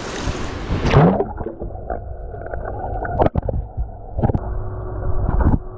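A camera's microphone plunging into a swimming pool about a second in. From then on all high sounds are cut off, leaving muffled water noise broken by several sharp knocks.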